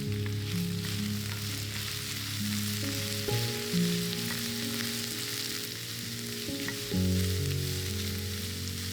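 Food frying in a hot pan, a steady sizzle with a few light clicks of a utensil. Soft background music plays underneath.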